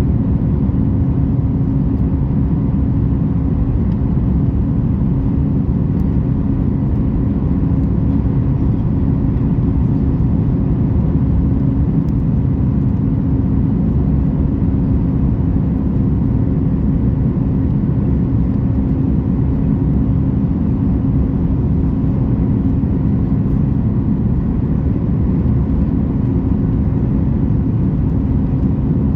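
Steady cabin noise inside a Boeing 737 MAX 8 in flight: the deep rush of its CFM LEAP-1B engines and airflow, with a steady hum running through it and no change in pitch or level.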